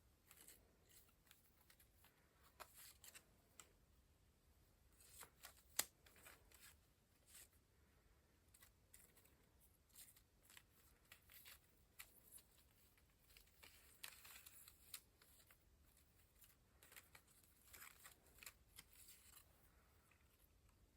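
Faint paper handling while working on a junk journal: soft rustling of paper with small clicks and taps scattered throughout, and one sharper click about six seconds in.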